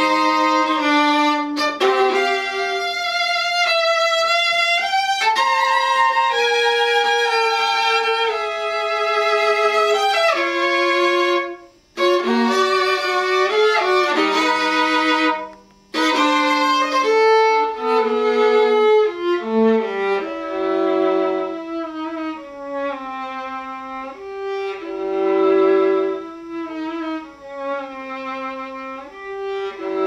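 Solo viola played with the bow: a slow, singing melody of long held notes, broken by two short pauses about twelve and sixteen seconds in, then going on in softer, shorter phrases.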